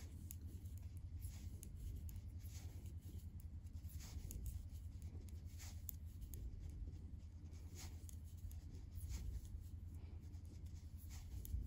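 Faint ticks and scratches of size 3.5 knitting needles and yarn as stitches are knitted one after another, over a low steady hum.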